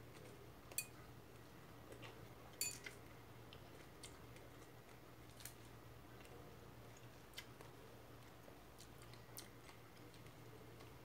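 Quiet eating of a leafy salad: a metal fork clicks lightly against a ceramic bowl a handful of times, with faint chewing.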